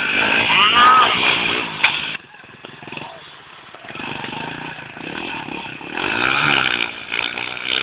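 Motorcycle engine revving up and down in pitch. It is loud for the first two seconds, drops off abruptly, and builds again from about four seconds in.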